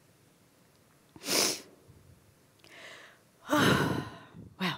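A woman breathing close on a headset microphone: a sharp intake of breath about a second in, then a long sigh out with a little voice in it, and a short breath near the end.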